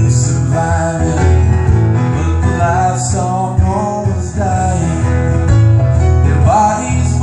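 Acoustic guitar and grand piano playing a song together, with a voice singing a sliding melody over them.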